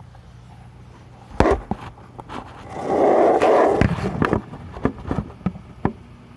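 Handling noise of a phone being picked up and propped back into place: a sharp knock about a second and a half in and several smaller clicks, about a second of rubbing and scraping around the three-second mark, then more light taps.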